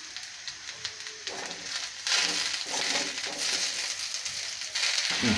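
Steel spoon scraping and clicking against a steel kadai as moringa leaves are stirred in hot oil, with the leaves sizzling. The sizzle comes up loud about two seconds in.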